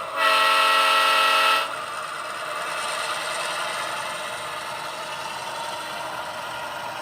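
HO-scale GP38-2's Tsunami 2 sound decoder blowing one steady locomotive horn blast of about a second and a half. After it the decoder's diesel engine sound runs on steadily, more quietly.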